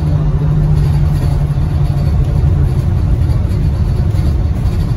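Gillig BRTPlus electric trolleybus with Kiepe drive heard from inside the cabin while running along the road: a steady low rumble of tyres and road with a continuous low hum.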